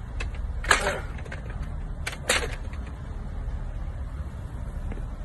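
Two sharp metallic knocks about a second and a half apart as a loaded barbell is set back onto a steel bench-press rack, over a steady low rumble.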